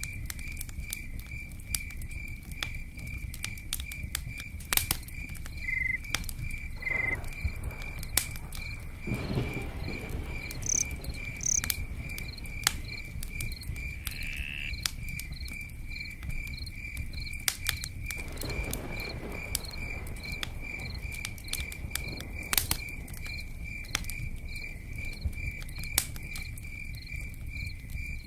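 Campfire crackling with scattered sharp pops over a low, steady rush, while a cricket chirps in an even, repeating rhythm.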